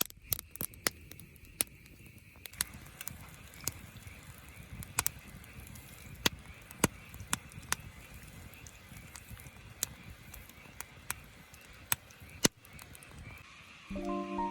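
Wood campfire crackling, with irregular sharp pops and snaps over a low hiss, and a steady high-pitched hum in the background. Music starts near the end.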